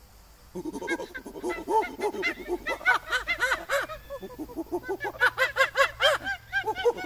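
Eagle-owl chattering while its feet are stroked: a fast run of short calls, each rising and falling in pitch, several a second. It starts about half a second in and eases briefly around the middle.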